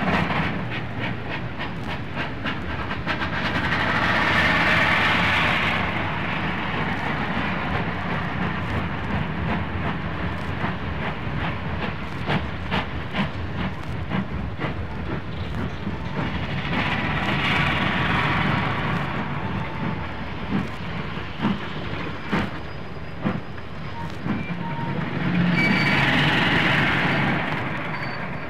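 A Beyer-Garratt and a standard goods steam locomotive working hard up a steep grade with a heavy train: a continuous hiss of steam and exhaust with irregular beats and knocks, swelling louder three times.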